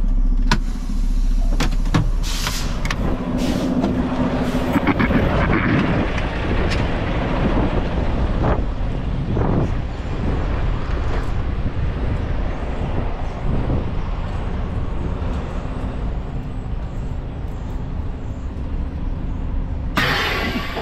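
Semi-truck diesel engine running steadily, with scattered clicks and knocks in the first few seconds. Near the end there is a short, loud burst of air hiss from the air brake system.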